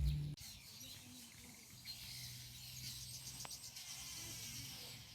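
Faint rural outdoor ambience: small bird chirps and insect calls, with a quiet low hum in the middle.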